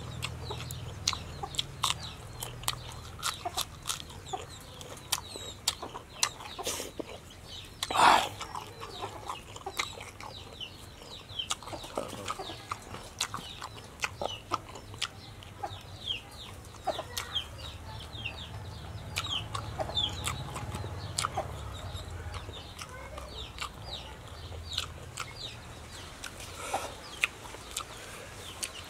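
Chickens clucking with repeated short chirps, one louder call about eight seconds in, over a scatter of small clicks from chewing and lip smacks.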